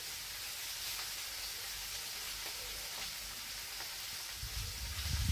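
Masala-coated fish frying in hot oil in a pan, a steady sizzle with faint ticks and pops. A short low thud comes near the end.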